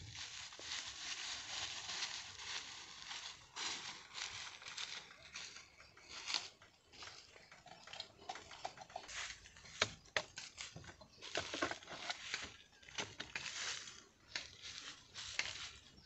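Dry bamboo leaves crunching and rustling under bare feet and being pushed aside by hand, an irregular crackling with many short sharp crackles.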